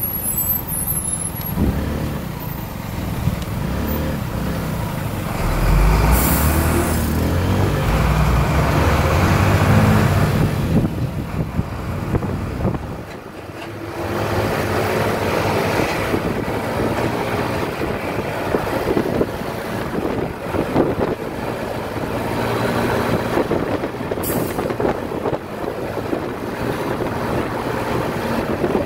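Motorcycle ride in traffic close behind a tank truck: engines running steadily, growing louder for several seconds from about six seconds in as they pull away, then easing briefly. Two short hisses cut through, one about six seconds in and one toward the end.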